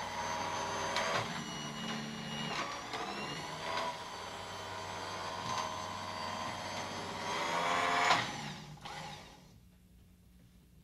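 Escalera electric stair-climbing hand truck's motor whining as its lifting cams walk it down a staircase under a heavy load, the pitch rising and falling with each step and short knocks as the wheels are set down. It is loudest about eight seconds in, then dies away and stops.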